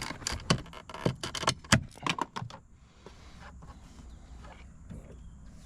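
A tool levering at the plastic interior door handle of a BMW E90 door panel, breaking into it: a quick, irregular run of sharp clicks and snaps for the first two and a half seconds, then only faint handling.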